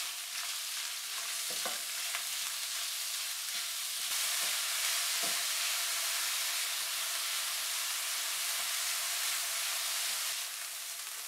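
Ground beef mince sizzling as it fries in oil in a non-stick kadai (wok), stirred with a silicone spatula with a few scraping strokes in the first half. The sizzle gets louder about four seconds in and holds steady.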